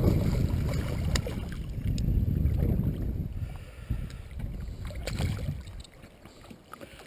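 Wind rumbling on the microphone, with water splashing against the boat's side as a hooked pike thrashes at the surface. Both die down about six seconds in.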